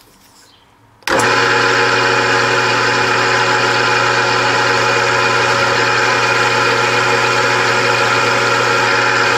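A drill press switches on about a second in and runs steadily and loudly while a solid carbide bit drills into a cast iron cylinder head.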